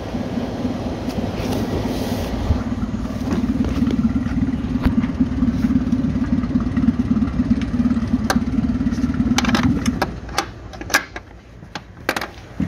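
Dinghy's outboard motor idling with a steady low drone, then shut off about ten seconds in. A few sharp clicks and knocks follow.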